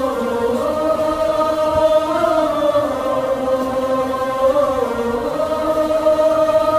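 Background music: a choir chanting in long held notes that slowly rise and fall in pitch.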